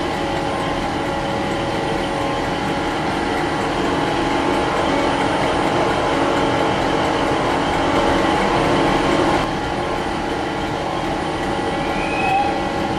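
Passenger train at a station, giving off a steady rumble with a constant hum. The sound eases slightly about nine and a half seconds in.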